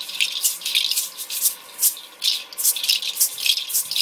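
A hand-held shaker shaken in a loose rhythm, about three short hissing shakes a second.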